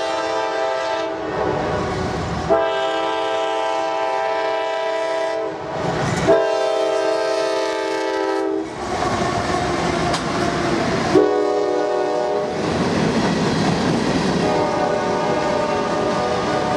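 Air horn of a CSX GE AC4400CW freight locomotive sounding a series of blasts, long, long, short, long, the pattern of a grade-crossing warning. Between the blasts the locomotives rumble and the wheels clatter over the rails as the train passes.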